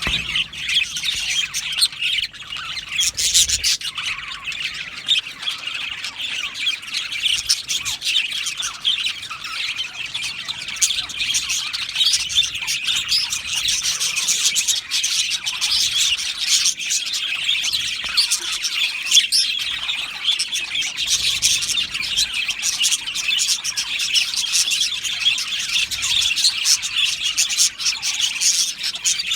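A flock of budgerigars chattering, with many birds chirping, warbling and squawking over one another in a continuous dense chorus.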